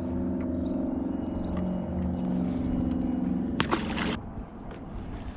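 Boat motor running with a steady drone that stops abruptly about four seconds in, just after a brief rushing burst.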